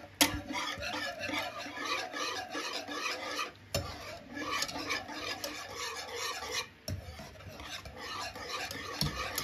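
A utensil stirring and scraping through thickening young-coconut sauce in a pot over low heat, in quick repeated strokes, with a few sharper knocks against the pot.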